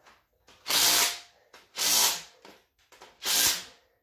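Cordless impact wrench firing in three short bursts of about half a second each, a little over a second apart, running bolts down on a GM 5.3 LS V8 long block.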